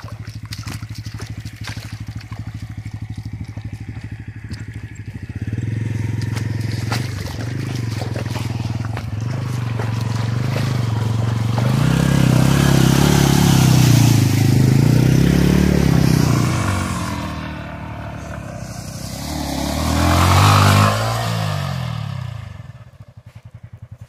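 Two single-cylinder motorcycles, a Bajaj Pulsar N160 and a Yamaha R15 V3, running close by and revving up and down as they push through shallow water and wet sand. The engine note rises and falls, loudest about halfway through and again near the end, with water splashing from the wheels.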